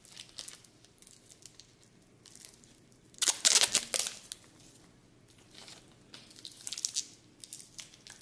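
Rustling handling noise as a wristwatch on a metal bracelet is pulled off its padded display pillow, with a louder scraping rustle about three seconds in and lighter crackles before and after.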